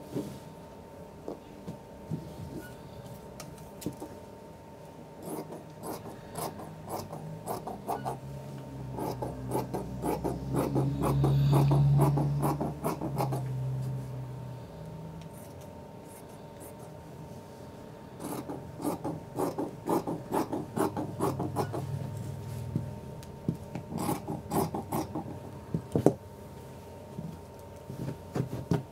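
Scissors cutting through chiffon fabric laid on carpet: two long runs of quick snips, with the blades and fabric rubbing and rustling between, and one sharp click near the end.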